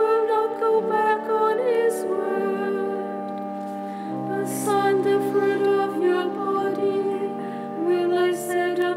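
A small group of voices singing a psalm verse in a slow chant, over sustained low accompanying chords that shift about a second in and again near four seconds.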